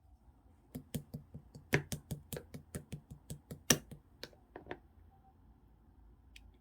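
Clear slime being pressed and poked, giving a quick run of sharp clicking pops, about four or five a second, that stops a little over two-thirds of the way through, with one faint click near the end.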